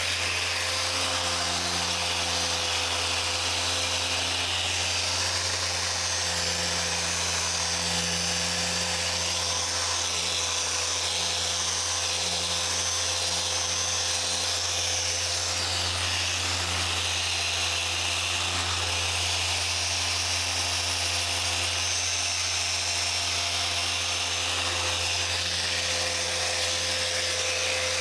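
Dual-action car polisher running steadily as its pad works over the paint, a constant low hum under a high whirring hiss.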